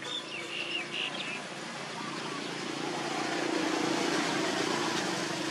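A few short high chirps, then a steady engine hum that swells to its loudest about four seconds in and eases off slightly: a motor vehicle passing.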